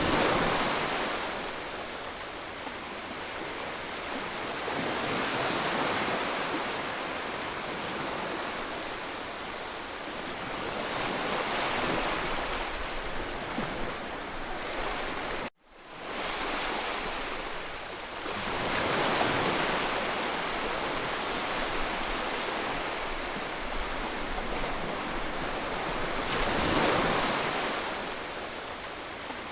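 Ocean surf: waves breaking and washing in, swelling and ebbing every several seconds. The sound cuts out abruptly for a moment about halfway through, then fades back in.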